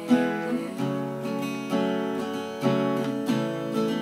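Black cutaway acoustic guitar strummed slowly, each chord ringing on between strokes, in the closing instrumental bars of a song.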